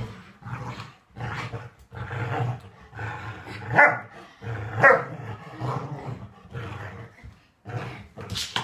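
A dog growling in repeated short bursts while it tugs, with two sharp, loud barks about a second apart near the middle.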